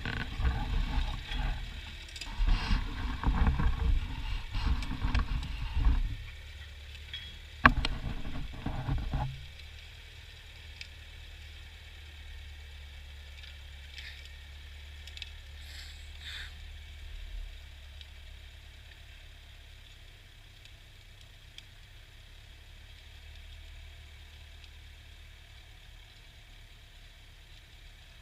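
Ford farm tractor engine running with a steady low drone. For the first nine seconds or so it is overlaid by loud, irregular clattering with one sharp click.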